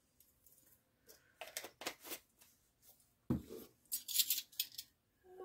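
Metal measuring spoons handled over a mixing bowl: a few light clicks, a knock on the countertop about three seconds in, then a brief metallic jingle as the spoons are moved.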